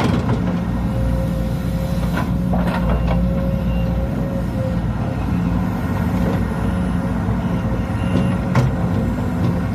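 Sumitomo SH210 excavator running steadily, its diesel engine hum overlaid by a thin steady whine, with a few sharp knocks from the machine.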